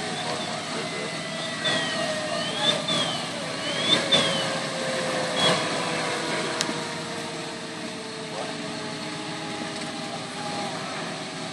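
Ambience of a large structure fire: fire apparatus and engines running steadily, a tone that slowly falls in pitch, and several sharp pops in the first half.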